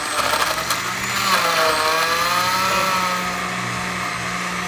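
Countertop blender running, crushing ice with banana, apple, kiwi and mint into a smooth purée. The motor's pitch dips and rises in the first half, then it runs steady.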